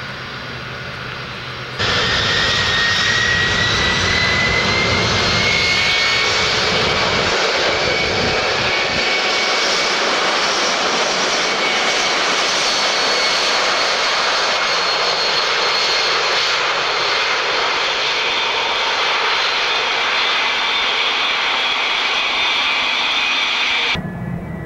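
Boeing 757 twin-jet airliner running its engines at high power on the runway, a loud steady jet roar with a high whine that climbs slightly in pitch. It comes in abruptly about two seconds in, after a quieter stretch of engine noise, and drops away sharply just before the end.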